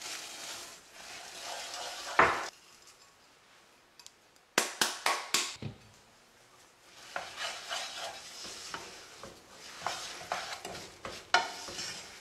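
Ground and chopped hazelnuts poured from a bowl into a saucepan of hot butter-and-sugar caramel, with a sharp knock about two seconds in and a quick run of knocks about halfway through. After that, a wooden spoon scrapes and stirs the thick nut mixture around the pan.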